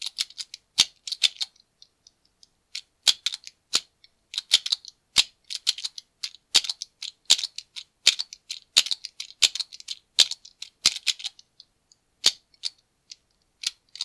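Master Lock Speed Dial directional padlock clicking and rattling as its dial is pushed one move at a time, with irregular clusters of sharp clicks and short pauses between them. These are the dial steps of a left-right-up stepping sequence used to find the gate on the lock's top disc.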